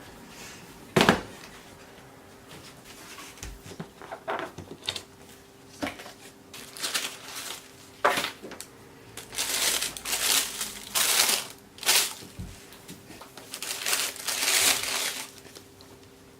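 Packaging being handled: paper crinkling and rustling in irregular bursts that grow longer and louder in the second half, with a sharp knock about a second in.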